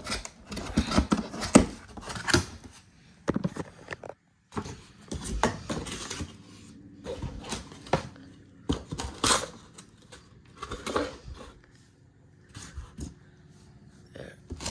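Unpacking handling noise: irregular rustling of packaging with light knocks and clicks as plastic parts of a portable jump starter are taken out and handled.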